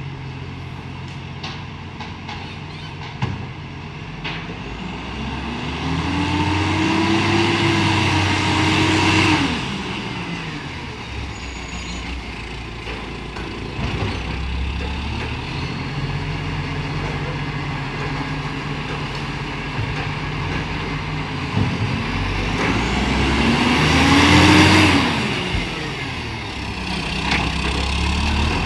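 Euro 6 garbage truck's diesel engine, its exhaust leaking, idling and then revving up twice. The pitch rises and falls each time and ends in a burst of hiss.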